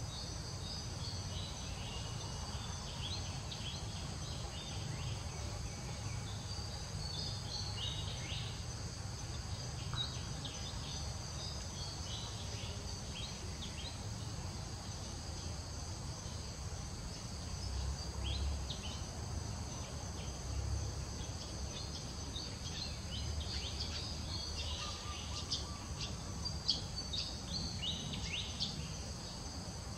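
Forest ambience: a steady high insect chorus with scattered short high chirps over it and a low rumble underneath.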